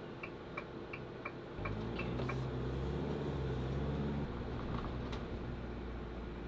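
Turn-signal indicator clicking in the cab of an Adria Sonic motorhome, about three clicks a second, stopping about two seconds in. Meanwhile the engine's drone grows louder as the motorhome accelerates for a couple of seconds, then eases back.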